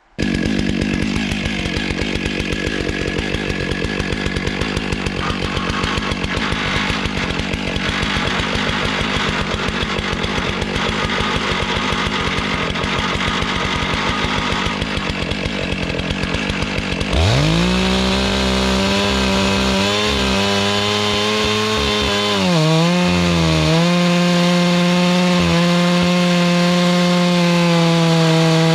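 Stihl MS 661 two-stroke chainsaw running at low speed, then opened up to full throttle about two-thirds of the way through. It holds a steady high pitch, dipping briefly once.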